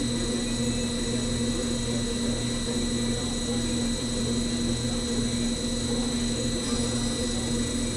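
CNC metal spinning lathe running as its roller forms a metal disc on the mandrel: a steady machine hum with a few constant whining tones and a low rumble that pulses at an even pace.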